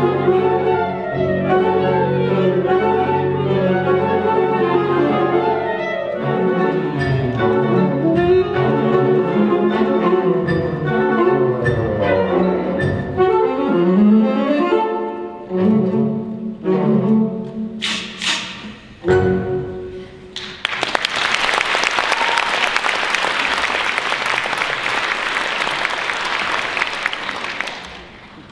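Alto saxophone solo with a symphonic wind band, double bass and drum kit, playing busy jazz-style film music at concert level. About eighteen seconds in the music breaks into a few sharp accented hits. Then a loud, even wash of noise lasts about seven seconds and fades near the end.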